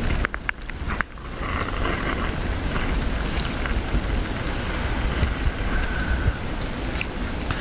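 Wind buffeting the microphone on a boat's open deck at sea: a steady low rumble that flutters unevenly, with a couple of short dropouts about a second in.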